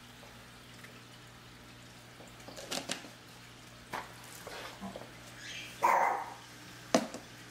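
A small dog barks loudly, about six seconds in, against a steady low hum, with a sharp click about a second later.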